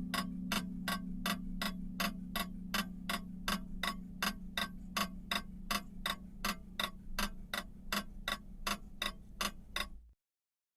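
A clock's second hand ticking in a quick, even rhythm over a low steady hum. The ticks and hum cut off abruptly near the end.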